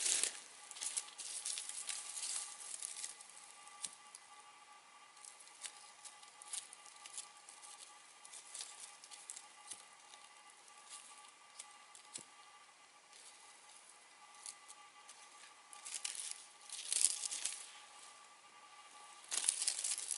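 Campfire crackling and popping in quick irregular snaps, with denser bursts of crackle about three-quarters of the way through and again near the end.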